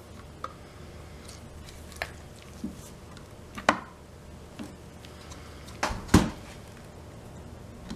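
Scattered clicks and knocks of a motorcycle fuel pump assembly's plastic and metal parts being handled and fitted together over a metal workbench, the loudest knock about six seconds in.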